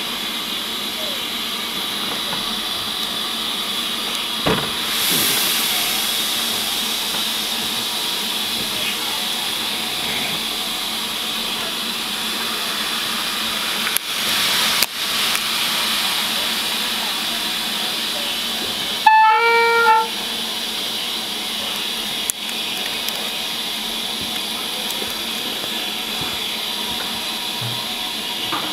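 Standing steam locomotive venting steam with a steady hiss. About two-thirds of the way through, a single short whistle sounds for about a second, louder than the hiss, with a few light clicks elsewhere.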